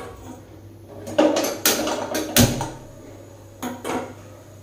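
Cookware and kitchen utensils being handled around a kadai on the stove: a run of clattering knocks and scrapes about a second in, then two more knocks near the end.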